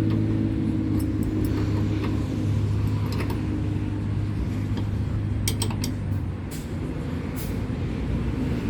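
An engine running steadily, with scattered light metallic clicks and clinks of a wrench tightening a part, a quick run of them about five and a half seconds in.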